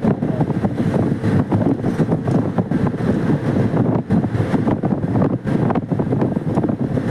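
Wind buffeting the microphone: a loud, rough rumble that flickers constantly.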